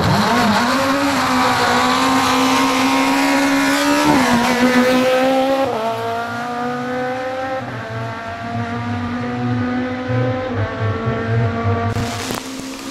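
Hillclimb race car's engine accelerating hard at full throttle, its pitch climbing and then dropping sharply at each upshift, about four and six seconds in and again near the end.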